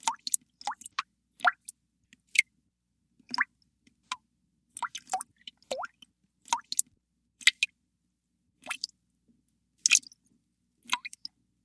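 Water drops falling one by one into water. Each is a short plink that glides up in pitch, coming irregularly at about one to two drops a second.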